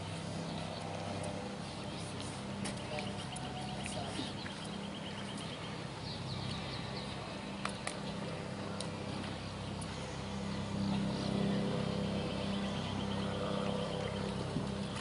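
Outdoor background noise: a steady low hum with faint distant voices. Twice a faint, high, rapid chirping runs for a few seconds.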